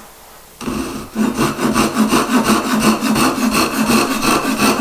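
Japanese double-edged ryoba saw cutting a wooden spoon blank along the grain with its coarse rip teeth, in a run of short, quick back-and-forth strokes starting about half a second in.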